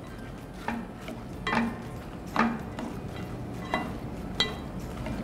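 Wooden spoon stirring fried potato cubes in a pot, knocking against the pot about five times with a short ring.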